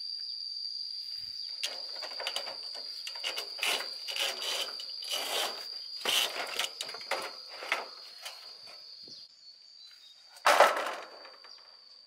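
Front casing panel of an old air-conditioner outdoor unit being worked loose and pulled off, scraping and rattling in a quick run of short bursts. It lands with a louder clatter about ten and a half seconds in. A steady high insect trill sounds throughout.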